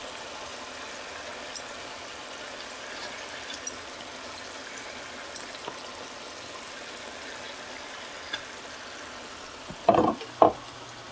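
Masala gravy simmering and sizzling in a pan as raw fish steaks are laid into it: a steady hiss with a few small ticks. Two short louder sounds come near the end.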